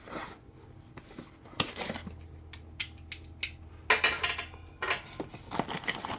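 A small cardboard product box and its packaging being handled and opened by hand: a string of sharp clicks and taps, with short rustling scrapes about four seconds in and again near the end.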